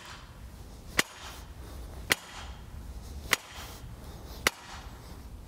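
Sledgehammer blows on a timber off-cut seated in a metpost socket, driving the metal fence spike into the ground: four sharp strikes, evenly spaced about a second apart.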